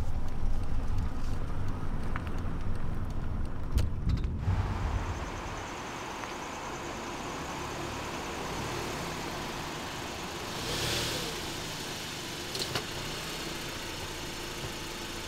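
Low rumble of a car being driven, heard from inside the cabin. About four and a half seconds in it gives way to a quieter, steady outdoor hiss as a car rolls slowly toward the listener, with a brief swell of noise about eleven seconds in.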